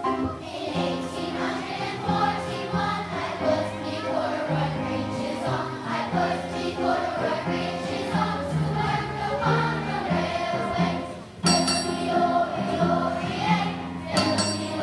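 Children's choir singing with accompaniment. Near the end a length of railroad track is struck once as percussion, ringing with a metallic clang.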